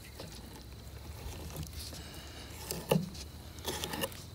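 Faint knife-work on a small catfish being filleted on a plastic cutting board: a few soft taps and clicks, about three seconds in and near the end, over a steady low rumble.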